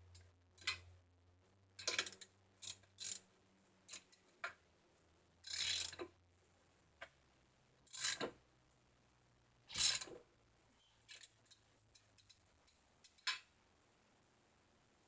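Hands working on a BMX bike tire and wheel: an irregular series of short scrapes, rubs and clicks, the longest and loudest about 2, 5½, 8 and 10 seconds in.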